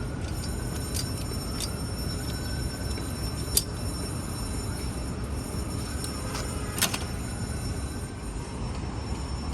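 Steady low rumble of city street traffic, with a few sharp clicks and a faint siren-like tone rising at the start.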